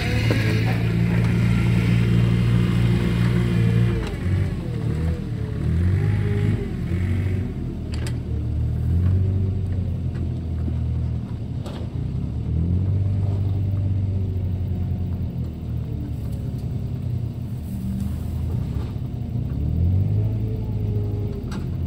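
Diesel engines of a Yanmar crawler carrier and a wheel loader running at close range, the low engine note rising and falling as the machines work the compost heap.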